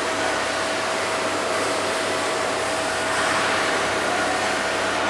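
Peak SX07 surface-mounted scissor lift being lowered from its control box: a steady hiss, with a thin steady tone running through it.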